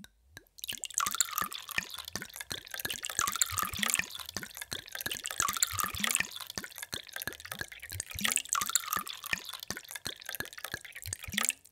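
Water pouring in a thin stream into a glass tumbler, splashing with many small, rising bubbly plops. It starts just under a second in and cuts off abruptly near the end.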